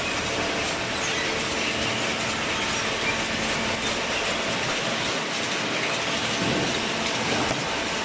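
A waste paper baler's steel slat feed conveyor running, with a steady, dense metallic clatter as it carries loose flattened cardboard up into the baler.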